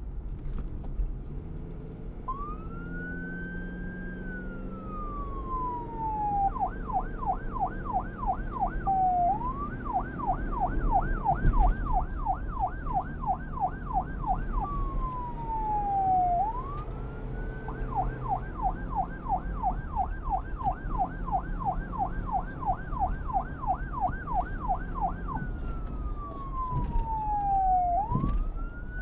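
Electronic police car siren, starting about two seconds in over a low rumble. It switches back and forth between a slow wail, which rises quickly and falls away slowly, and a fast yelp of about four sweeps a second. The wail and yelp alternate three times.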